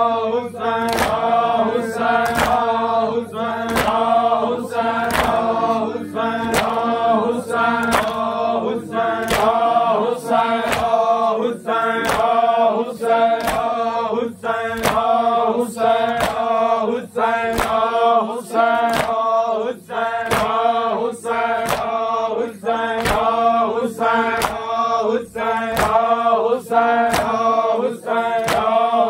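A noha, a Shia mourning lament, chanted by a group of men's voices, with sharp, regular hand slaps of matam chest-beating about once a second keeping the beat. A steady drone runs underneath.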